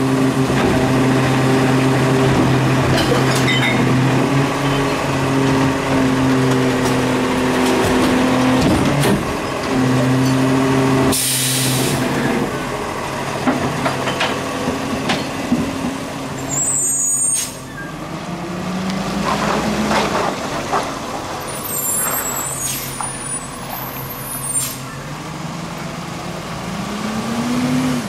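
Garbage truck working a stop: the engine runs steadily with a hydraulic hum in several steady tones while the Labrie Expert Helping Hand automated arm lifts and returns the cart. Partway through comes a short, loud hiss of air from the brakes, and then the engine revs with rising pitch as the truck pulls away, twice.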